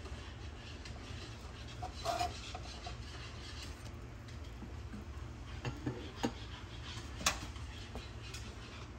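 Light clinks, knocks and scraping of a cooking utensil against a frying pan, scattered and irregular, the sharpest click about seven seconds in, over a steady low hum.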